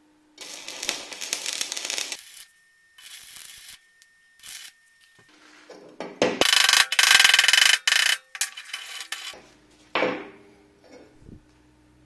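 Stick-welding arc from a homemade welder built from a refrigerator compressor's motor coil: crackling and hissing in several bursts, the longest and loudest about six seconds in and lasting about three seconds. A steady low hum between the bursts, and a metallic clank about ten seconds in.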